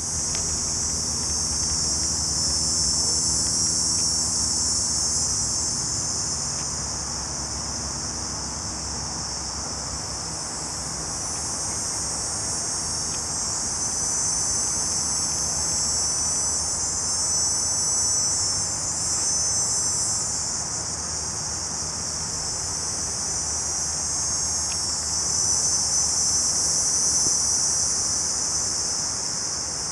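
Cicadas buzzing in a loud, high chorus that swells and fades in slow waves lasting several seconds. Under it, a low steady hum is heard for about the first ten seconds.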